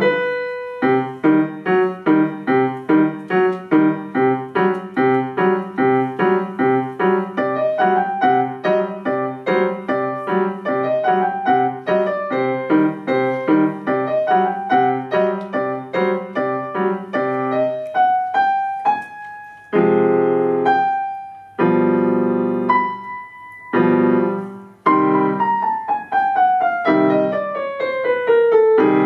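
Grand piano played solo: an even pulse of repeated chords over a repeated middle note, a quick rising run about two thirds of the way in, then heavy accented chords separated by short breaks, and a long descending run near the end.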